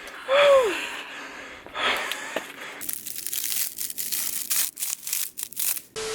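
A brief falling, voice-like tone, then about three seconds of dense crinkling and crunching.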